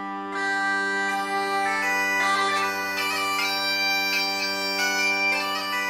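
Bagpipes playing a melody over their steady drone.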